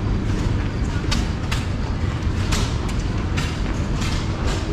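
Several antique stationary flywheel gas engines running together: a steady low rumble with sharp, irregular pops as individual engines fire.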